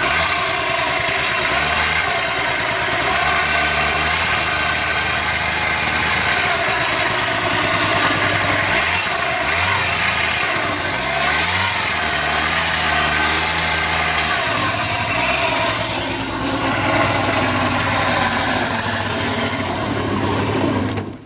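Daelim Message 50 cc scooter engine running, its pitch rising and falling several times between steadier stretches. This is the strange engine noise the owner is showing. The sound cuts off suddenly at the end.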